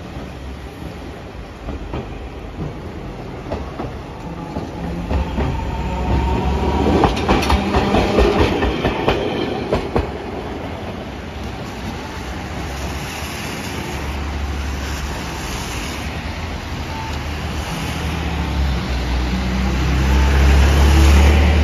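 Tosaden streetcar rolling past close by on wet street track, with a low rumble and a quick run of wheel clacks over the rail joints a few seconds in, at its loudest. Near the end a low rumble and hiss of traffic on the wet road swells up.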